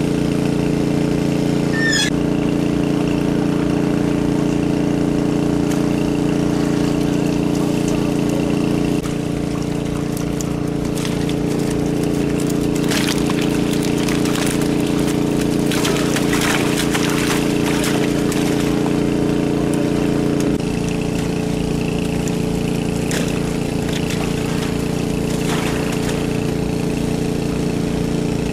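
Engine of the crane hoisting a basket of live fish, running steadily, its hum shifting down a little about a third of the way in and changing again past two-thirds. Around the middle there is splashing and flapping from the fish being netted out.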